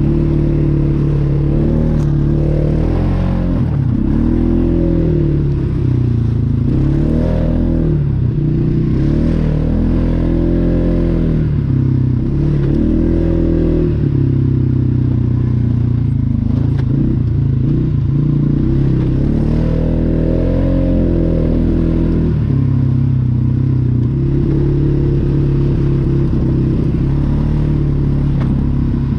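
Polaris Sportsman 570 ATV's single-cylinder engine running while under way, its pitch rising and falling again and again as the throttle is opened and eased off.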